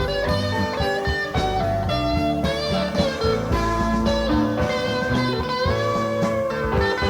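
Background music: a blues-rock tune led by guitar, with a steady beat.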